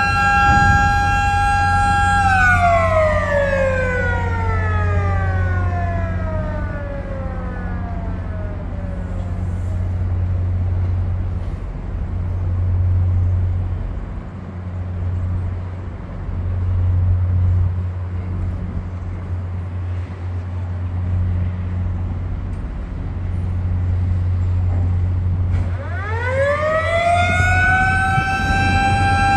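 A high, steady motor whine with overtones winds down, falling in pitch and fading over several seconds about two seconds in, then winds back up to the same steady pitch near the end. A low hum that swells and dips runs underneath.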